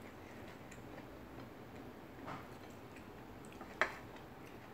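Quiet hand-eating sounds: fingers picking rice and fish off a ceramic plate, giving faint scattered clicks and one sharper click near the end.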